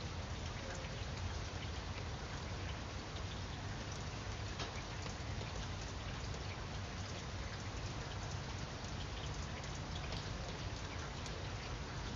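Steady light rain falling on grapevine leaves: an even hiss of rainfall with many scattered single drops ticking through it.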